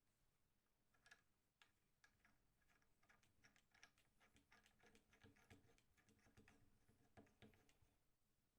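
Faint, quick, irregular clicking, starting about a second in and stopping shortly before the end.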